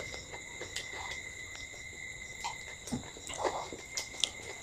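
Faint sounds of people eating with their hands: soft chewing, small clicks and rustles. A steady high-pitched whine runs underneath.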